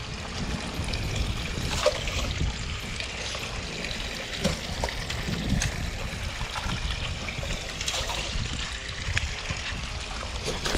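Water sloshing and trickling against the dock, over a low steady rumble, with a few faint clicks.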